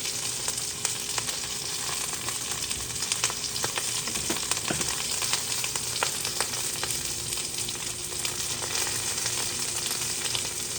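Mushrooms and cherry tomatoes frying in sesame oil in a hot frying pan: a steady sizzle with scattered little pops and crackles, the pan going hard.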